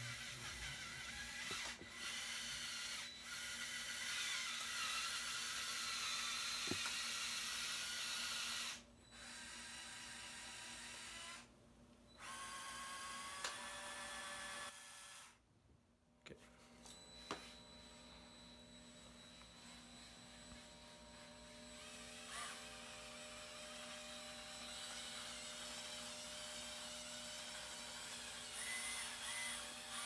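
Small electric motors and plastic gearing of a motorised Lego Technic skid steer and truck whirring, stopping and starting several times with short pauses between spells.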